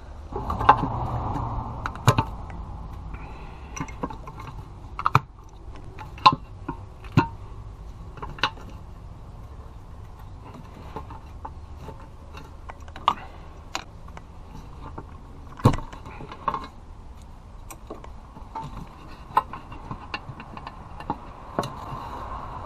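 Scattered, irregular metallic clicks and knocks of hand tools and parts being handled while a diesel engine's valve cover is taken off, over a low steady background hum.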